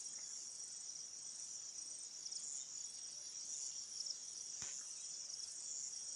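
Insect chorus: a steady, high-pitched, pulsing chirr, with one brief click about three-quarters of the way through.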